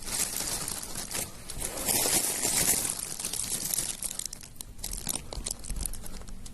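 Plastic crinkling and rustling in dense, crackly bursts, loudest about two to three seconds in.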